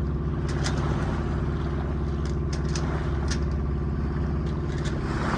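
A Contessa 26 sailing yacht's engine running steadily under way: a constant low hum, with scattered light clicks and knocks over it.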